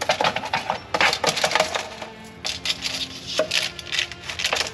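A quick, irregular run of clinks and taps: a metal spoon knocking and scraping against a foil-lined metal sheet pan.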